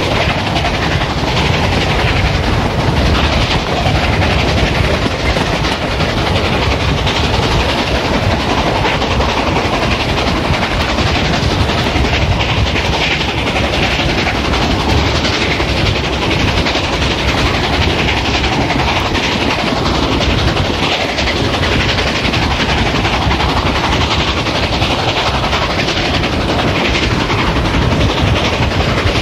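Steam-hauled passenger train running steadily, a continuous loud rumble and clatter of its wheels on the rails.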